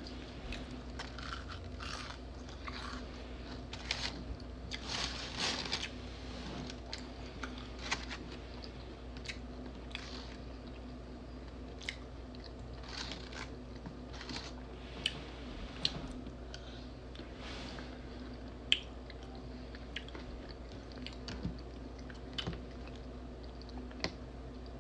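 A person chewing and eating food close to the microphone, with irregular short clicks and smacks of the mouth, over a faint steady hum.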